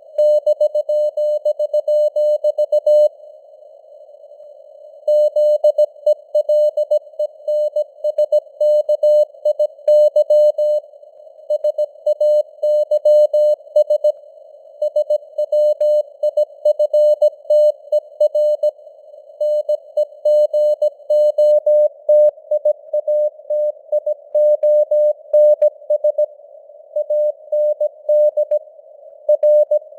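Morse code sent as a keyed tone of about 600 Hz at 17 words per minute, over a narrow band of hiss standing in for radio noise, the signal strength fading up and down (simulated QSB). The keying pauses for about two seconds shortly after it starts.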